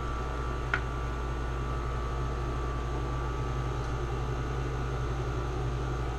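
Steady hum and whir of a window air conditioner running, with one short sharp click just under a second in.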